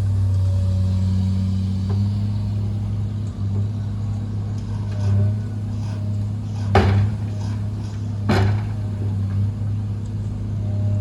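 Heavy construction machinery engine running steadily at a low hum, with two sharp knocks about a second and a half apart near the middle.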